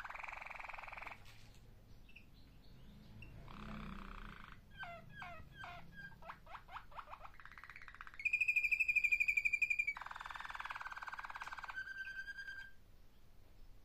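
Malinois (Waterslager) song canary singing: rolling trills, a run of quick falling notes, and a loud, clear held whistle about two-thirds of the way in, which is the loudest part, followed by more rolling trills and a shorter held note.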